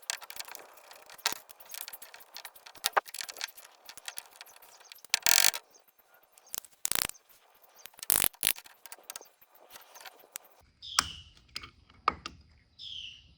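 Irregular clicks, clinks and knocks of small metal parts and hand tools being handled while a two-barrel Holley 2280 carburetor is taken apart. It goes quieter in the last few seconds, with a couple of short squeaks.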